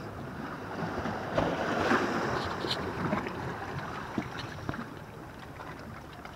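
Sea wash and wind on the microphone: an even rushing noise that swells about a second in and eases off after about three seconds, with a few faint handling clicks.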